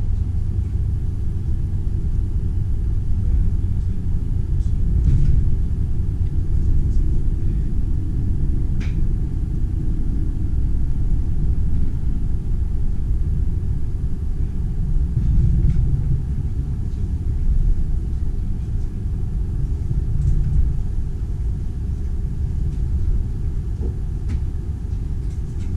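Steady low rumble of a passenger train running, heard from inside the carriage, with a few faint ticks.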